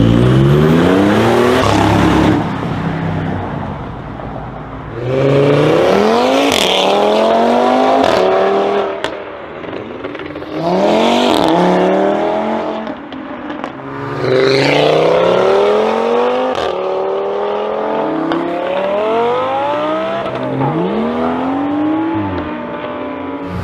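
High-performance car engines accelerating hard, one car after another, about five times. Each run's engine note climbs steeply and drops back at the gear changes.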